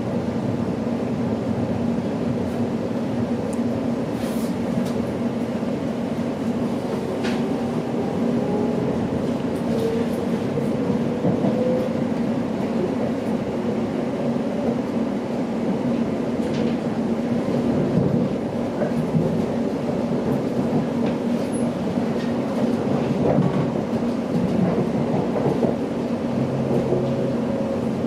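Electric commuter train running, heard from inside the carriage: a steady rumble of wheels on the track with a hum, a faint whine rising in pitch about ten seconds in, and a few sharp clicks from the wheels.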